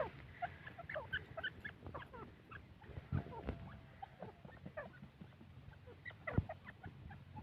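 Teetar (partridge) chicks peeping: many short, faint, high cheeps scattered throughout, with two soft knocks.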